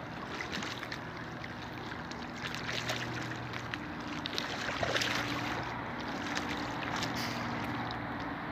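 Water lapping and small irregular splashes as a snorkeler kicks along the surface with fins, over a steady low motor hum.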